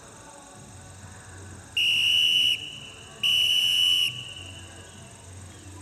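A whistle blown in two blasts, each a little under a second long and about half a second apart, at a steady high pitch: a whistle signal being demonstrated.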